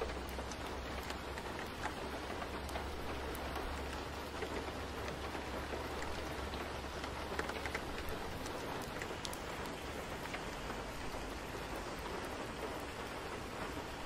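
Steady rain falling, a dense even patter with scattered individual drop ticks. A low hum underneath stops about halfway through.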